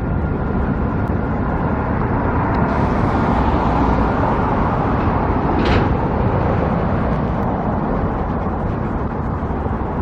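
Road traffic noise: a steady rumble of passing vehicles, tyres and engines, swelling a few seconds in as a vehicle goes by close, with a brief hiss in the middle.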